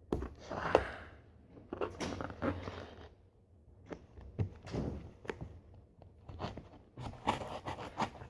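A shipping package being handled and opened: bursts of rustling and crinkling with sharp clicks and a few dull knocks.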